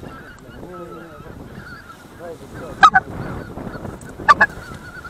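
A flock of white-fronted geese calling, many faint high yelps overlapping, with a loud close double honk about three seconds in and another just past four seconds.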